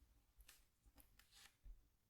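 Faint scratching of a tool scraping across a scratchboard: a few short strokes about half a second apart.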